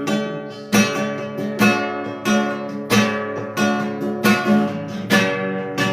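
Acoustic guitar strumming chords at a slow, even pace, about one strum every three-quarters of a second, accompanying a worship song between sung lines.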